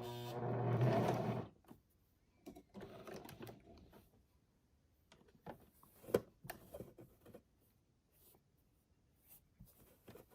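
Electric sewing machine running steadily, then stopping about one and a half seconds in; scattered light clicks and knocks follow, the loudest about six seconds in.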